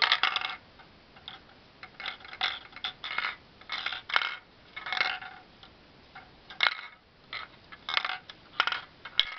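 A marble rolling and clicking against the plastic walls inside a Lego labyrinth puzzle box as the box is tilted and shaken, in irregular bursts of rattling clicks with short pauses between them.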